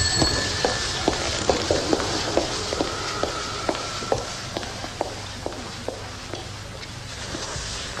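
A quick, irregular run of sharp clicks and taps, about three a second, growing sparser and fainter after about six seconds.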